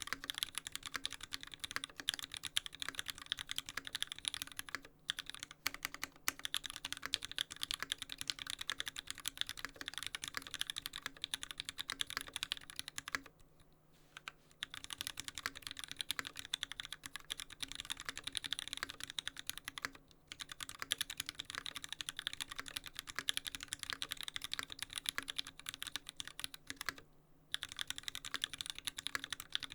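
LZ Stan custom mechanical keyboard being typed on fast and continuously: lubed Gateron Yellow linear switches on an aluminium plate, with GMK Signal keycaps. The typing stops in brief pauses about 5, 13, 20 and 27 seconds in.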